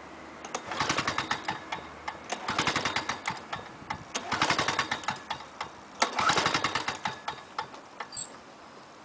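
Lawn-Boy Duraforce 6.5 hp two-stroke mower engine being pull-started on choke: four pulls of the recoil starter, each turning the engine over with a quick run of puffs, without the engine settling into running.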